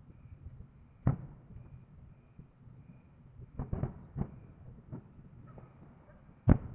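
Fireworks going off: a bang about a second in, a quick run of pops and bangs around four seconds, and the loudest bang near the end.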